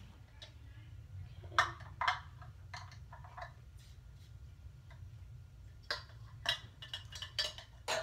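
Hard plastic hamster-cage parts being handled and fitted together, clicking and clacking in irregular light knocks. Two louder clacks come about a second and a half and two seconds in, and another run of clicks comes near the end.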